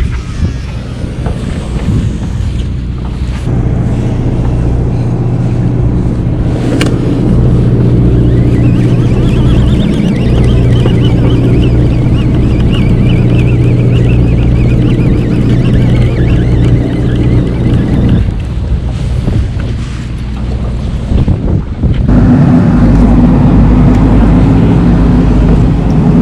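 The fishing boat's engine running steadily under way, with wind buffeting the microphone. About two-thirds of the way through the engine note falls away, and near the end it comes back louder and higher.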